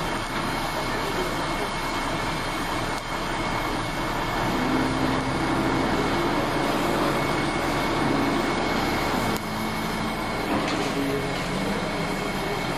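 Gas welding torch hissing steadily as it welds a thin steel fuel tank, over the steady drone of a running engine.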